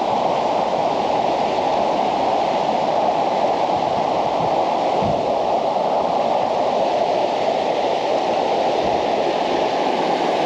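Steady rush of water pouring through a small hydroelectric dam, an even roar with no break.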